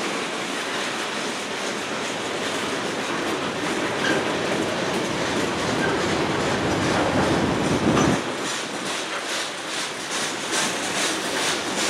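Freight cars of a passing manifest train, boxcars and a tank car, rolling by with a steady rumble and wheels clacking over the rail joints. The deep rumble drops away suddenly about eight seconds in, and a run of wheel clicks follows near the end.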